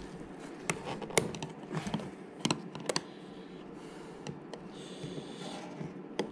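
Irregular small clicks and taps of a screwdriver and hard plastic parts being handled among wiring connectors on a motorcycle, with a brief rustle about five seconds in.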